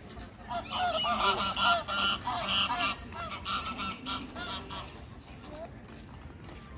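Geese honking: a burst of loud, overlapping honks in the first half, then a few fainter ones.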